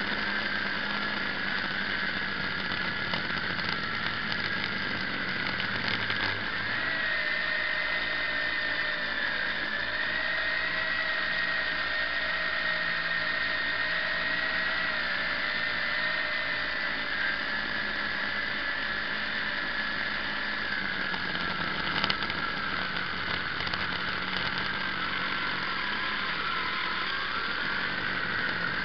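Quadcopter's electric motors and propellers whining steadily in flight, heard from a camera mounted on the drone; the pitch wanders slightly up and down. One sharp click about three-quarters of the way through.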